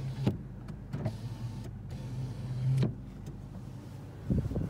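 Power rear sliding window of a 2019 Toyota Tacoma, its electric motor humming. The motor stops with a click just after the start, then runs again for about two seconds and stops with a knock. A brief rustle follows near the end.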